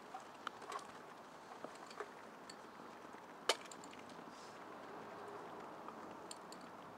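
Faint steady background hiss with scattered sharp clicks, the loudest about three and a half seconds in.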